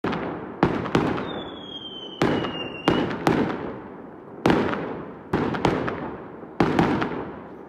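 Fireworks going off: about a dozen single loud bangs at uneven intervals, each trailing off in a long echo. A thin falling whistle sounds between about one and three seconds in.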